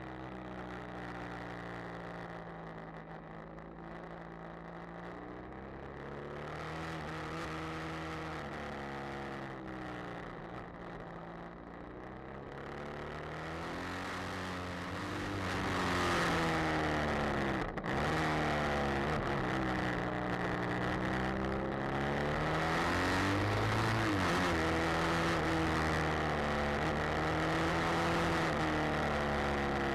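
BMW F800R motorcycle's parallel-twin engine running under way, its revs rising and falling again and again through the bends. The sound grows louder a little before halfway, with a brief break in the sound soon after.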